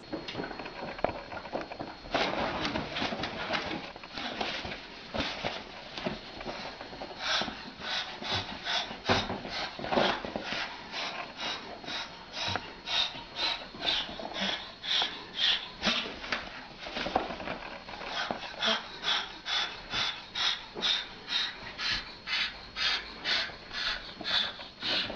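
Cockatoo hissing in a threat display: breathy huffs, irregular at first, then settling into a steady rhythm of about two a second.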